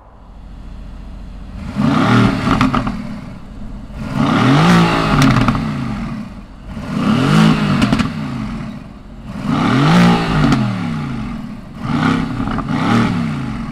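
Mercedes-AMG GT C's 4.0-litre twin-turbo V8 idling, then revved about five times, each rev rising in pitch and falling back to idle.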